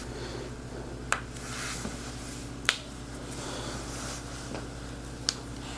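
Finger joints popping as they are pulled open in a chiropractic traction adjustment: three sharp cracks with fainter clicks between them.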